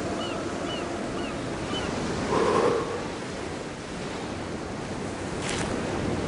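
Sea waves washing on a pebble beach: a steady surf hiss that swells once about two and a half seconds in.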